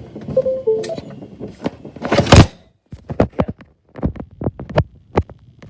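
Handling clunks and clicks of a USB stick being pushed into a desktop PC's USB port, with one loud thunk about two seconds in and a string of sharper clicks and knocks after it.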